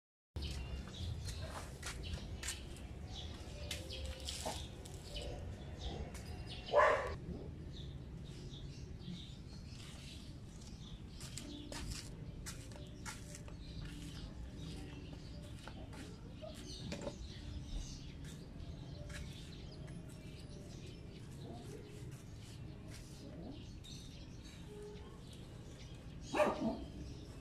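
A dog barking over a steady low street background: one loud bark about seven seconds in and two more near the end. Faint clicks and chirps come and go throughout.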